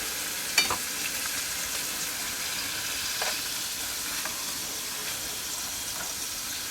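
Steaks sizzling steadily in a frying pan, nearly done, with a sharp clack of a utensil against the pan about half a second in and a few fainter knocks later.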